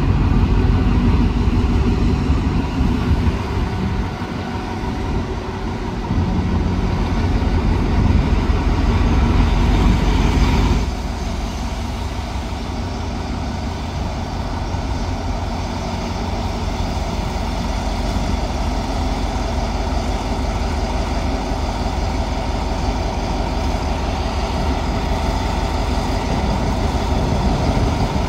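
Alsthom diesel-electric locomotive's engine running with a steady low rumble. The sound drops and changes abruptly about eleven seconds in, then runs on evenly and grows slightly louder near the end as the locomotive comes closer.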